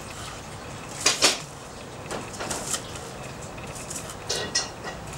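Kitchen knife cutting on a wooden cutting board: a few separate cuts, the loudest pair about a second in, then scattered lighter strokes.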